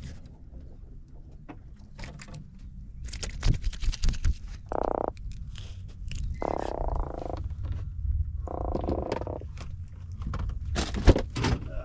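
An Atlantic croaker held in the hand croaks, drumming its swim bladder in three short buzzing bursts, each under a second, spaced about a second apart. Handling clicks and knocks run through it, with a sharp knock near the end, over a low wind rumble.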